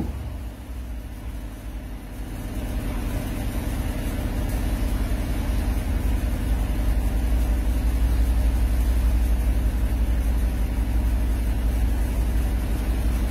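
Mercedes-Benz SL550's twin-turbo V8 idling with a steady low drone just after start-up, while the retractable hardtop's electro-hydraulic mechanism runs to close the roof. The sound grows louder over the first few seconds, then holds steady.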